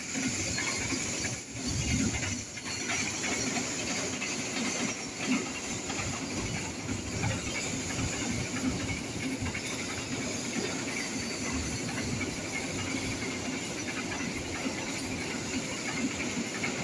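Container wagons of a freight train rolling past close by: a steady rumble and rattling hiss of steel wheels running on the rails.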